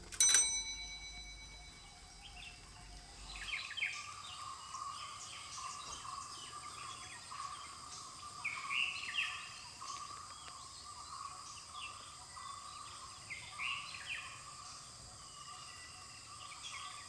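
A single bicycle bell ring: one sharp ding that rings on for about three seconds. After it, birds chirp over a steady insect drone.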